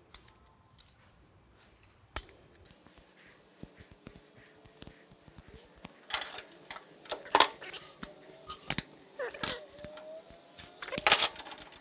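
Steel C-clamps clinking, rattling and knocking against an aluminum truck-skid frame as they are set and screwed tight. The clicks are sparse at first and turn louder and more frequent about halfway through.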